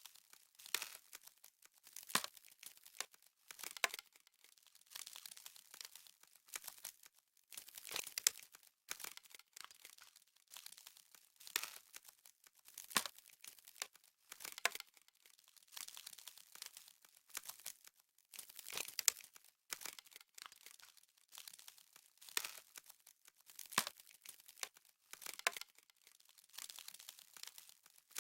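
Crisp crunching of frozen snow, one crackly crunch about every second and a half in a slow, even rhythm.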